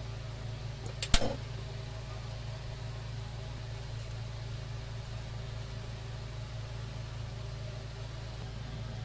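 One sharp click about a second in as the gas stove's burner is lit, over a steady low hum.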